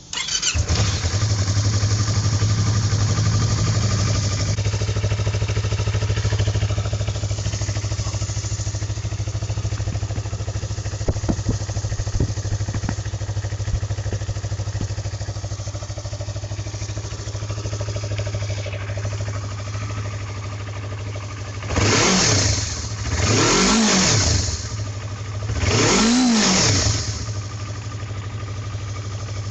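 Yamaha YZF-R25's 249 cc parallel-twin engine idling steadily. Near the end the throttle is blipped three times, each rev rising and falling quickly back to idle.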